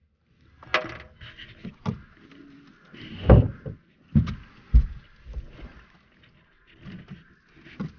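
Irregular knocks and thumps on a small flat-bottomed fishing boat, about half a dozen, the loudest about three seconds in.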